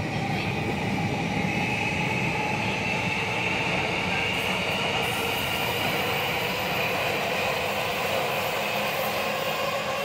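Electric commuter trains running through a station: a steady rolling rumble with a high whine that rises slightly over the first few seconds.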